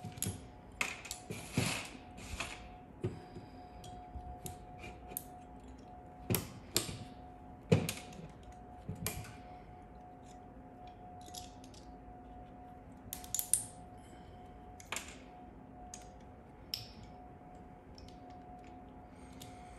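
Steel pliers gripping, twisting and tearing spot-welded nickel strip off the ends of 18650 lithium-ion cells. Irregular metallic clicks, snaps and scrapes come in clusters with pauses between them, busiest in the first half.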